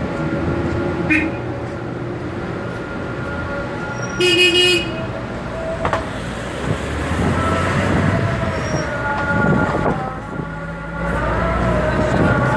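Steady engine and road noise heard from inside a moving car in city traffic, with a car horn honking once, briefly, about four seconds in.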